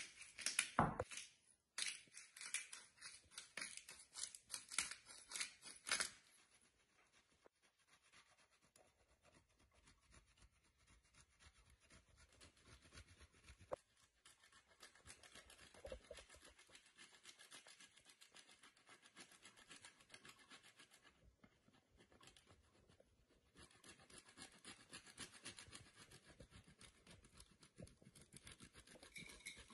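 A block of Parmesan cheese rubbed on a flat metal rasp grater, a long run of quick scratchy rasping strokes, louder in the first few seconds and again near the end.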